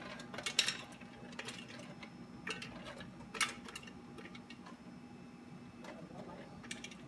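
Stainless steel hotel pan clinking and knocking against a metal food-processor jug as its contents are shaken out, a handful of separate sharp knocks, the loudest about half a second in and about three and a half seconds in, over a steady low hum.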